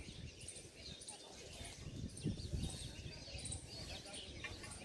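Birds chirping in many short, high calls, over a low rumble.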